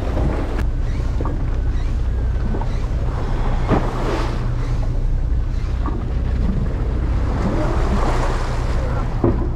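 Fishing boat's engine running with a steady low hum, while sea water churns and splashes along the hull, and wind buffets the microphone.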